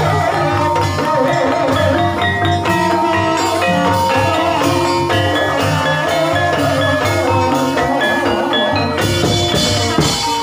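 Banyumasan ebeg accompaniment music: tuned mallet percussion playing steady interlocking notes over a drum beat, with one sharp crack near the end.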